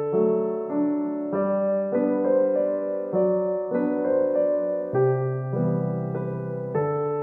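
Background piano music: a gentle keyboard melody over chords, with the notes changing about every half second to a second.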